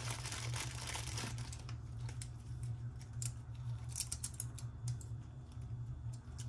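A small plastic bag crinkling as it is pulled open, then scattered light clicks of plastic clipper guards knocking together as they are handled. A steady low hum runs underneath.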